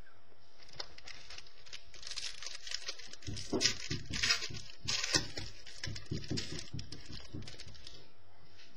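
Trading cards being handled and flipped through by hand: a run of quick rustles and clicks, busiest in the middle.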